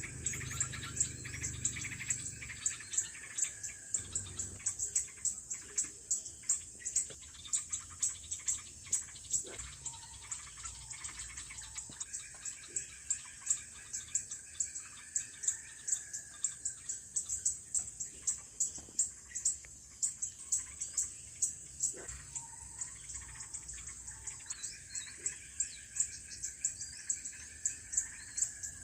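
Outdoor insect chorus: a high, rhythmic chirping pulsing about two or three times a second, with a fainter, lower trilling call that fades in and out.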